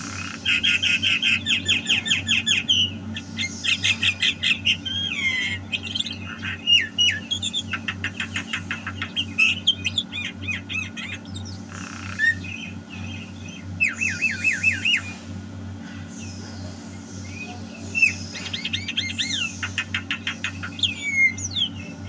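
Javan myna (jalak kebo) singing vigorously: bursts of rapid trilled notes and whistled glides, over a steady low hum.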